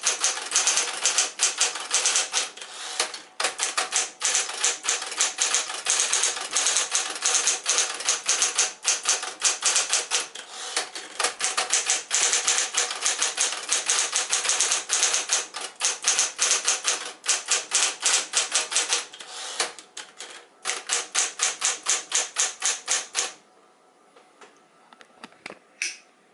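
Smith-Corona Coronet electric typewriter typed on at speed: a fast, dense stream of keystrokes over the steady hum of its motor, with a brief pause about two-thirds through. The typing stops about three seconds before the end, leaving the faint motor hum and a single click.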